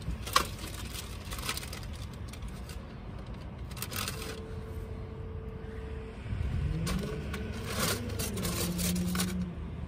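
Things being rummaged through and moved about on a car's back seat: scattered scrapes, rustles and small clicks. A low hum rises and then holds over the last few seconds.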